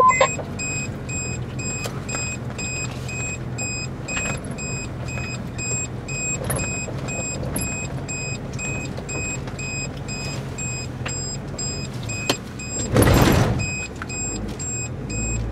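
Cabin noise of a 4x4 driving slowly on a rough dirt track: a steady low engine drone with occasional knocks and rattles. There is one brief, louder rushing noise about 13 seconds in.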